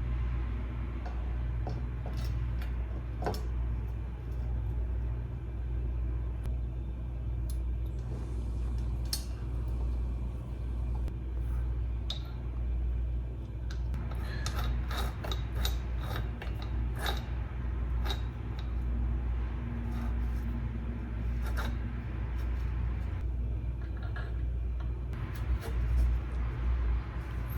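Scattered metallic clicks, knocks and rubbing from hand work on a BMX bike's sprocket and pedal parts, busiest in the middle of the stretch, over a steady low hum.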